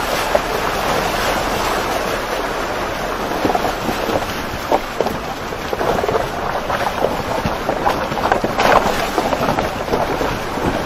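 Muddy river water churning and splashing around a 4x4's tyres as it drives through a shallow, stony river crossing, with irregular splashes and knocks throughout. Wind buffets the outside-mounted camera's microphone.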